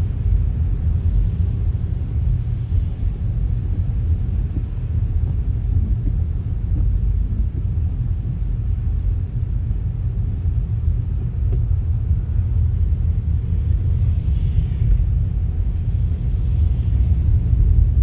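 Car driving at steady speed: a constant low road-and-engine rumble, with a faint hiss swelling up twice near the end.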